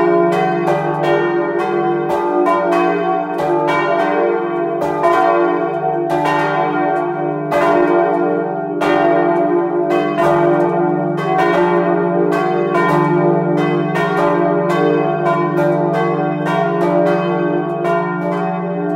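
Full peal of three bronze church bells cast in 1954, swung by electric ringing drives and heard close up in the belfry: the clappers strike irregularly, several times a second, the strikes overlapping over a steady ringing hum.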